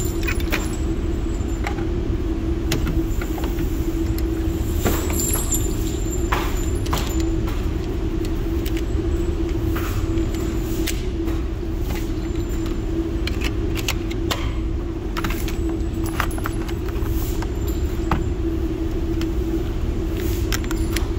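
Steady low rumble and hum of an indoor shooting range's ventilation system, with scattered light clicks and clinks.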